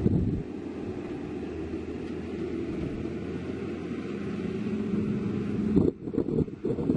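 Diesel engine of heavy construction equipment running steadily with a rumbling note that rises slightly. Near the end the sound turns choppy and uneven.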